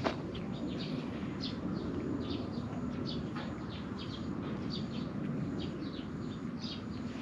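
A cat grooming itself close up: a run of short rasping licks of its tongue on its fur, about two or three a second, over a steady low rumble of outdoor background. A single soft knock sounds right at the start.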